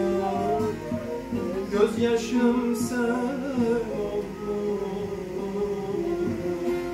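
Bağlama, a long-necked Turkish saz, playing a folk melody, with a man's voice singing along through the middle.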